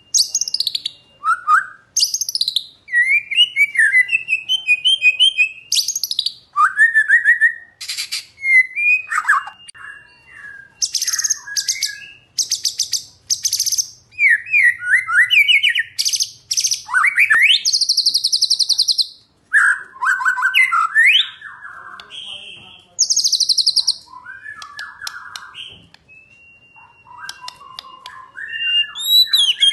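Male white-rumped shama singing loud, varied phrases: clear whistles, fast rattling trills and notes that swoop up and down, one after another with only short pauses.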